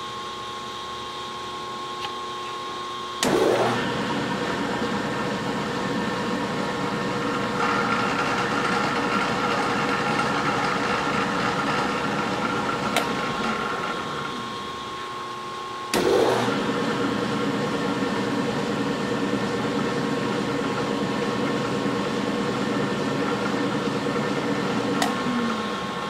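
South Bend 10L metal lathe running under power with a steady whine and hum, while a threading die in a tailstock die holder cuts threads on the end of the shaft. It turns abruptly louder about three seconds in and again about sixteen seconds in, and eases near the end.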